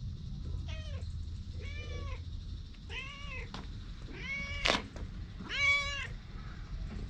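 Cat meowing five times, roughly once a second, each meow rising then falling in pitch; the last two are the loudest. A short sharp click lands during the fourth meow.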